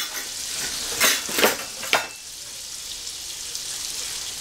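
Butter sizzling steadily in a stainless steel skillet over the browned pan drippings. A wooden spoon scrapes the browned bits off the pan bottom in three quick strokes in the first two seconds.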